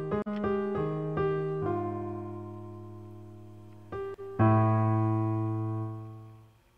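Slow piano music: a few struck notes, then two long held chords that slowly die away, fading out near the end.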